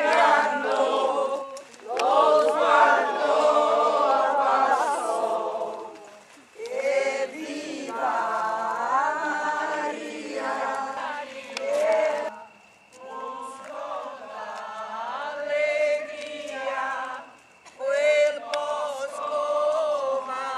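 A crowd of people singing together without accompaniment, in long phrases broken by short pauses for breath.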